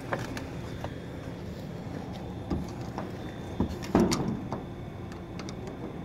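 Scattered clicks and knocks of a screwdriver and metal door-knob hardware being handled, the loudest about four seconds in, over a steady low hum.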